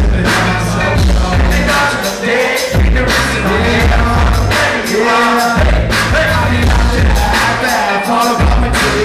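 A live band playing loud, with drums, heavy bass and a sung lead vocal, recorded from among the audience.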